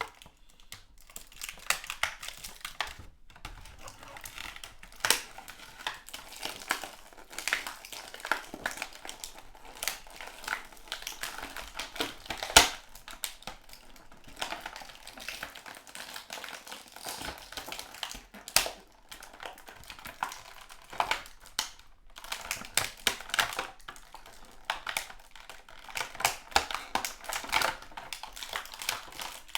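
Action figure packaging, plastic tray and cardboard, being handled and pried apart to free the figure: irregular crinkling and clicking, with two louder sharp snaps, about twelve and eighteen seconds in.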